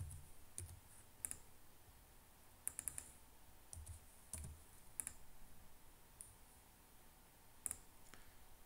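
Faint computer keyboard keystrokes and mouse clicks: about ten short, separate clicks, with a quick run of three near three seconds in.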